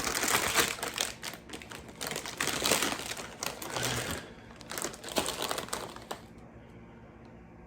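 Crinkly plastic chip bag rustling and crackling in irregular bursts, stopping about six seconds in.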